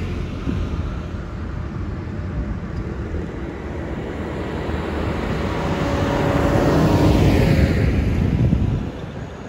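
Diesel engine of a modern New Holland tractor running on the road as it approaches, growing louder and passing close by near the end, then dropping away suddenly; more tractor engines run in the distance.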